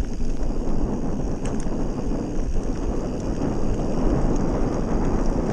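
Wind buffeting a GoPro's microphone over the steady rumble of mountain bike tyres rolling fast on a dirt and gravel track, with a few faint clicks of grit.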